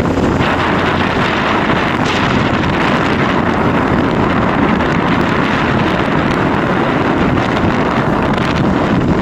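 Steady wind noise rushing over the microphone of a moving vehicle, mixed with road and engine noise.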